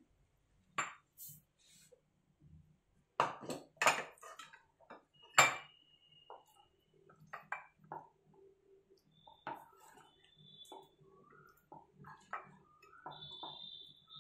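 A glass bowl clinking on a stone counter while a wooden spatula knocks and scrapes cooked vegetable filling out of a pan into it. A few sharp knocks come in the first seconds; the loudest, about five seconds in, leaves a short ringing ping. Lighter tapping and scraping follows.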